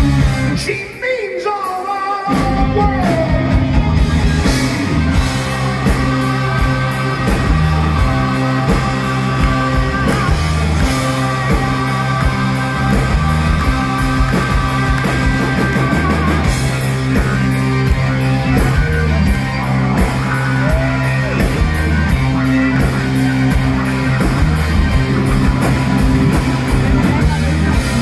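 Live rock band playing loud heavy rock: drums, bass and guitar with long held notes above. The bass and drums drop out for about the first two seconds, then come back in and drive steadily on.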